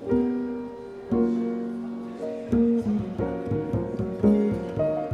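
Jazz piano and plucked double bass playing a slow lounge-style piece: held chords at first, then quicker notes from about three seconds in.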